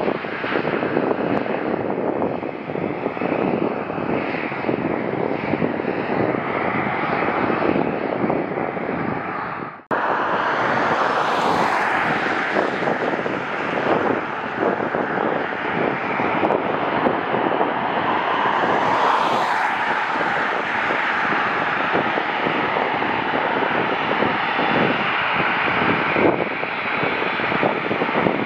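Jet airliner engines running as an aircraft passes, a steady rushing noise. The sound cuts out abruptly about ten seconds in and picks up again at once, brighter, with two swells in the higher range.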